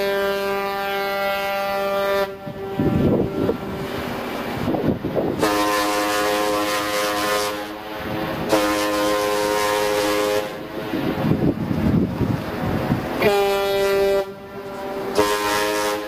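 Cruise ships' horns sounding a series of long blasts of about two seconds each, two horns of different pitch answering each other in turn.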